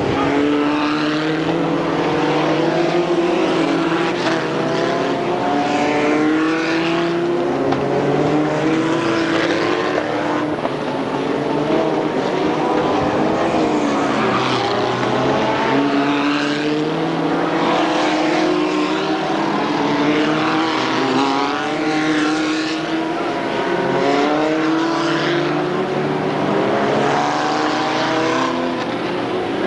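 Several racing stock car engines running hard as a pack laps the track. Their pitch keeps rising and falling as cars accelerate and pass one after another.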